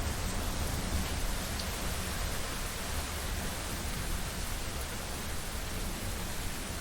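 Steady rain hiss with a low rumble of wind and distant thunder underneath, the rumble a little stronger in the first second or so.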